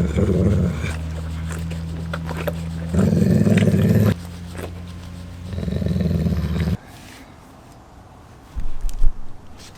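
Cane corso mastiff growling low and deep in three long rumbles a few seconds apart, with a softer steady rumble between them. A short loud thump comes near the end.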